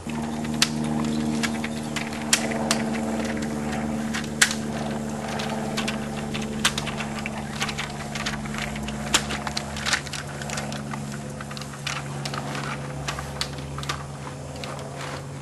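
Bucket truck engine running steadily, with irregular sharp clicks and knocks over it from work on a wooden utility pole.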